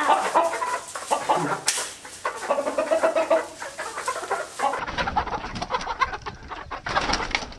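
Chickens clucking and squawking as they are chased and caught with a net, with scattered clicks and knocks in the second half.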